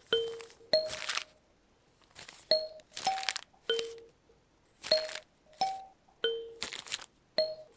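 Kalimba playing a slow melody of single plucked notes, about nine in all, each with a sharp attack and a ringing tone that dies away, with a short pause about two seconds in.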